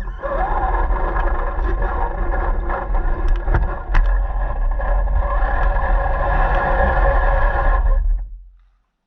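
Radio-controlled car driving, its motor whining steadily over a deep rumble, with a few sharp knocks around the middle; the sound fades out about eight seconds in.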